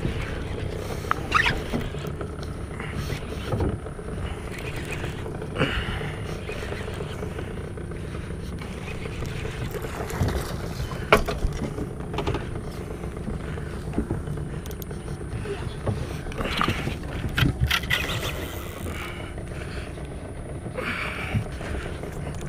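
Boat's outboard motor running steadily, with scattered knocks and clicks from handling the rod and baitcasting reel during the fish fight.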